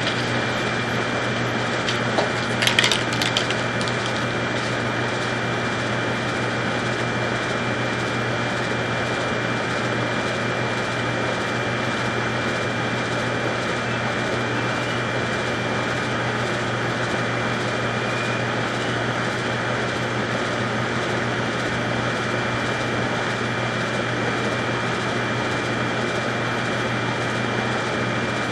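Steady mechanical hum with a constant high-pitched whine running underneath, and a short clatter of clicks about two to three seconds in.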